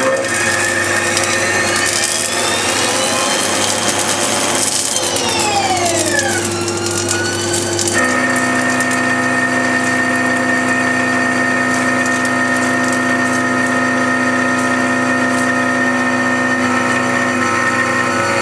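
Haas TL2 CNC lathe machining. The spindle drive's whine rises in pitch over the first few seconds, falls again, then holds a steady pitch from about eight seconds on, with a hiss of cutting in the first half.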